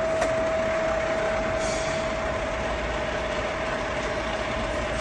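Huron NU4 milling machine running with its table traversing under power feed on the Y axis: a steady mechanical whine over running noise, with a small click about a quarter second in.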